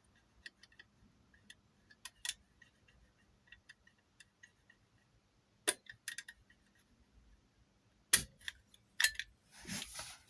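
Small metal clicks and ticks of a lever-lock pick and tension tool working the levers of a Sentry/Omega type 1 safe lock, coming irregularly, with a few louder sharp clicks in the second half as the lock is picked open.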